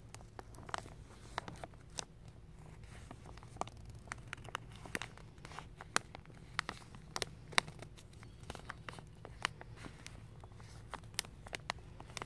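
Thin plastic sheeting crinkling as fingers work the torn edge of the wrap on a carpet roll: irregular sharp crackles, a few louder ones near the middle, over a low steady hum.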